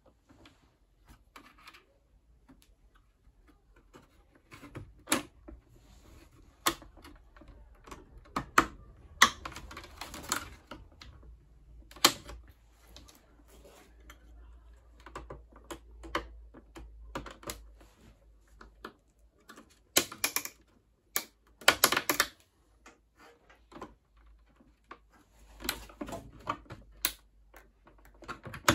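Irregular sharp clicks and knocks of the plastic door rings and clips of a Samsung washing machine door being worked apart with a screwdriver, with a cluster of louder clicks about two-thirds of the way in.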